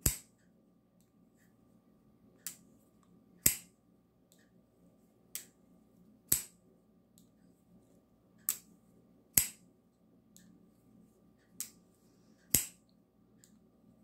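QSP Canary folding knife flicked open by its thumb stud and closed again, over and over: about ten sharp clicks, mostly in pairs about a second apart, as the blade snaps open and shut.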